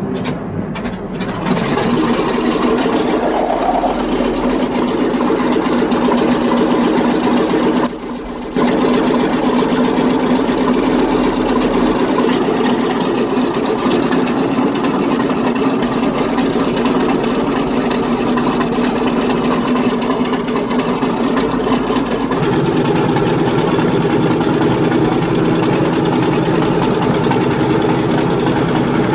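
Old aircraft engine running steadily after a cold start, settling in over the first second or two, with a brief drop in level about eight seconds in.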